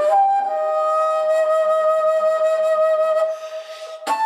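Flute holding a long steady note. A little after three seconds it gives way to breathy air noise, then a sharp attack leads onto a new, higher note near the end.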